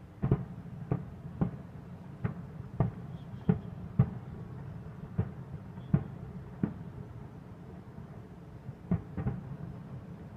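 Distant fireworks going off: about a dozen sharp, dull bangs at irregular intervals, some in quick succession, with a lull of about two seconds before a last few near the end.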